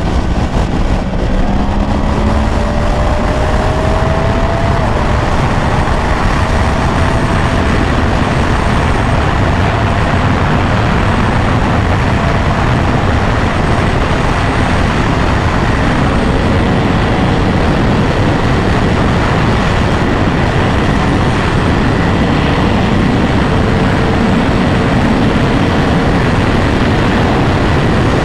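Steady rush of riding wind noise on the microphone of a moving 2024 Yamaha R1, the bike's crossplane inline-four engine faintly underneath. The engine note climbs over the first few seconds and comes and goes later.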